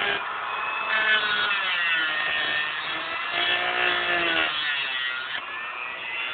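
Small electric grinder grinding metal out of the inside of an HO-scale model railroad rail at the switch point. Its whine shifts in pitch as it bears on the rail, rising about a second in and sliding down and back up again later.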